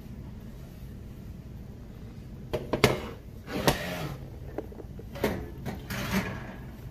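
Glass baking dish pulled from the oven and set down on a glass-top electric stove: a run of sharp knocks and clunks of glass and metal, starting about two and a half seconds in and ending about six seconds in, after a low steady hum.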